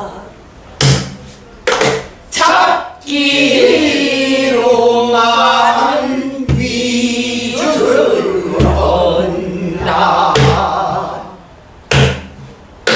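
A class of pansori students singing a line together, with strokes on a buk barrel drum: a few drum strokes first, then the group's singing from about three seconds in, with further strokes marking the rhythm and a couple more near the end.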